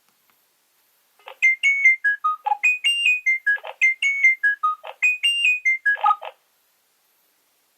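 Nokia 3200 mobile phone playing a ringtone: a short tune of quick, clear notes stepping down from high to low, played twice over, starting about a second in and stopping after about five seconds.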